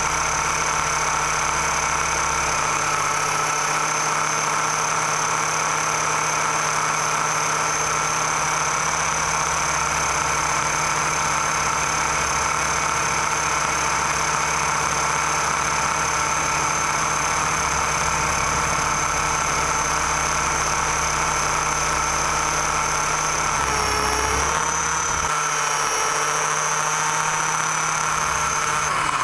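Battery-powered model aircraft's electric motor and propeller running at steady speed with a constant whine; the pitch dips and shifts briefly a little before the end as the throttle changes.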